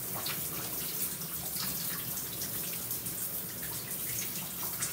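Shower running: a steady spray of water falling onto a person rinsing her hair and onto the tiled stall, with small splashes scattered through it.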